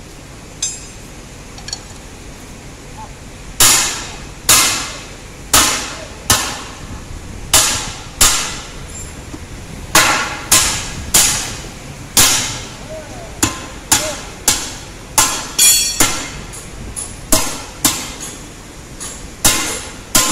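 A hammer striking the steel rim rings of a large off-road tyre, metal on metal, about twenty ringing blows at an irregular pace of one or two a second, starting a few seconds in, as the rim rings are driven into the tyre during mounting.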